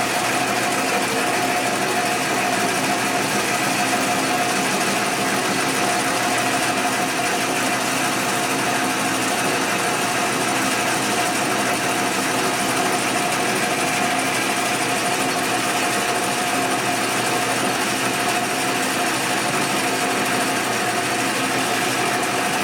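Metal lathe running steadily, with an even whine that holds one pitch throughout.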